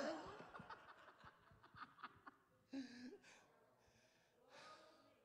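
Faint laughter and chuckling from a few people, fading to near silence, with a short voice sound a little under three seconds in.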